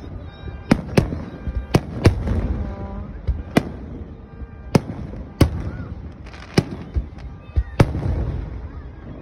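Aerial fireworks shells bursting overhead: about ten sharp bangs at uneven intervals, over a low rumble and crackle from the display.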